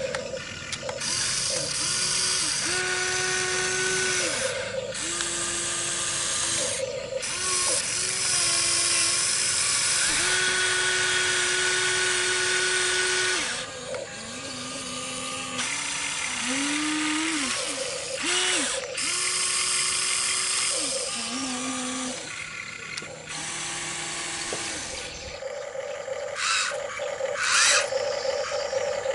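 Huina RC excavator's electric motors and gearboxes whining and grinding in short runs as the boom, bucket and turntable move, each run sliding up in pitch as it starts and down as it stops. Near the end come a series of sharp clicks and scrapes.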